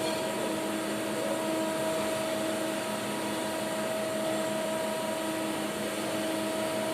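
CNC lathe running with a steady, even hum and a constant whine.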